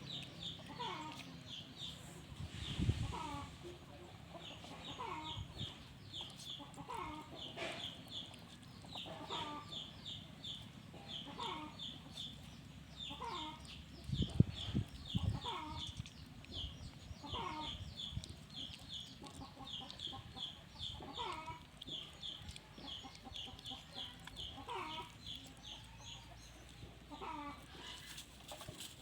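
Chickens clucking, with a short falling call about once a second over rapid high chirping that never stops. Two dull thumps, the louder one about halfway through.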